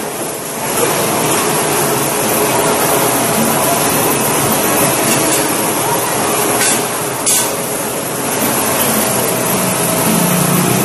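Loud, steady mechanical noise of industrial machinery while an overhead crane's C-hook carries a steel coil, with two short metallic knocks a little past the middle.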